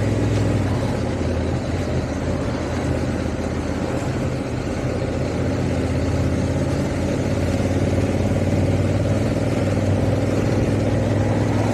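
Honda Africa Twin DCT's parallel-twin engine running steadily on the move, with wind and road noise.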